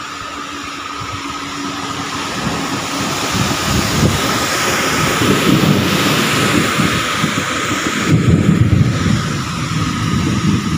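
Torrential rain pouring down: a steady, loud rush of rain with a low rumble underneath, swelling louder a few seconds in.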